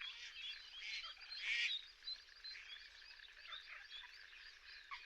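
A faint, dense chorus of wintering waterbirds such as ducks and geese, many short overlapping calls at once, with a louder burst of calling about a second and a half in.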